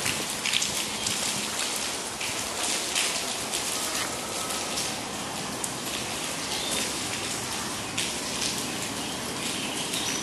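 Steady rain falling, with scattered louder drop hits.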